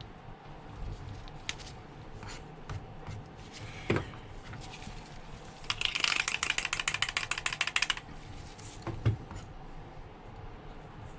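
Small clicks and taps of tools and phone parts being handled during reassembly, with a knock about four seconds in, a fast run of even clicks lasting about two seconds around the middle, and another knock near the end.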